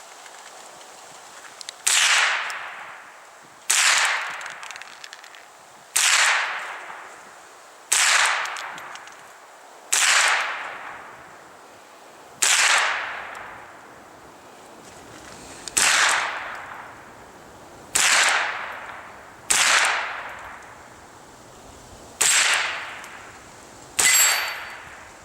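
Walther H&K G36 .22 LR rimfire rifle firing about eleven single shots, roughly one every two seconds, each crack trailing off in a short echo.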